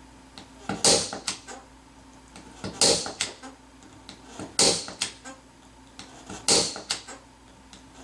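Spring-loaded 110 impact punch-down tool, set on high impact, snapping four times about two seconds apart as it seats each Cat 5/Cat 6 wire into the jack's 110 terminal and cuts off the excess, with small clicks after each snap.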